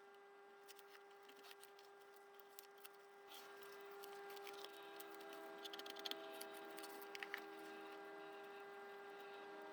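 Faint scattered clicks and light handling noises over a steady hum, from hand-making a paper gasket, with a few louder clicks in the middle.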